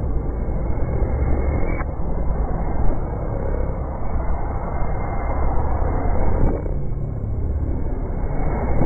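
Heavily distorted, pitched-down audio: a dense, muffled rumbling noise with no clear tone or voice, changing abruptly about two seconds in.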